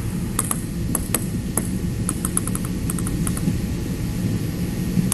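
Plastic table tennis ball being bounced before a serve: short sharp pings, a few single bounces and then a quick run of about six around two seconds in, over a steady low hum.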